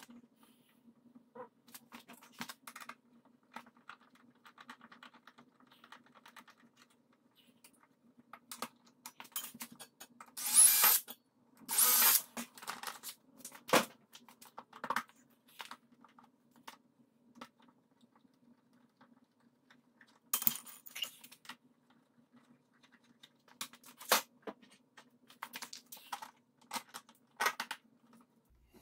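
Scattered small clicks and metal clinks of bolts, nuts and the plastic fender being handled and fitted. A few short, louder noisy bursts come at about ten and twelve seconds in and again near twenty seconds, over a faint steady hum.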